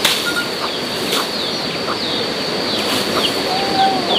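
Birds chirping in short falling notes, several each second, over a steady high whine and a rustling hiss.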